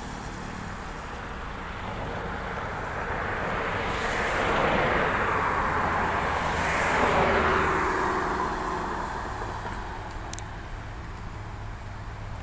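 Traffic driving past on an asphalt highway: tyre and engine noise swells, is loudest about four to five and seven seconds in as vehicles including a car go by, then fades away.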